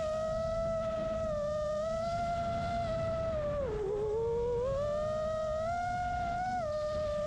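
The motors of a custom 5-inch FPV quadcopter whining steadily. The pitch dips briefly about four seconds in as the throttle is eased, then climbs back. Low wind rumble runs underneath from stormy blizzard winds.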